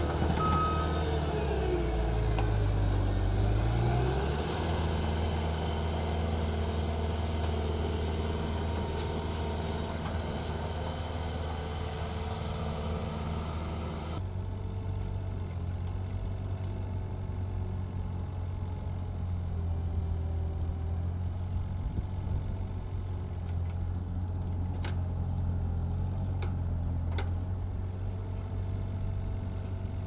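Diesel engines of compact construction equipment running. First a Bobcat T750 compact track loader's engine drones and revs up briefly as it works its bucket, with a couple of short beeps at the start. About halfway through it gives way to the steady drone of a mini excavator's engine, with a few sharp clanks near the end.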